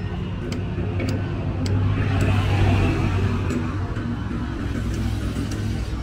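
City road traffic: a motor vehicle passes close by, loudest about two to three seconds in, over a steady rumble of traffic. Faint footsteps tick about twice a second.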